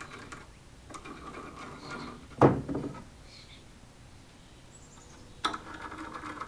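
Workshop handling noises as lumber and hardware are positioned, with a single sharp knock about two and a half seconds in. Near the end a steady mechanical whir starts.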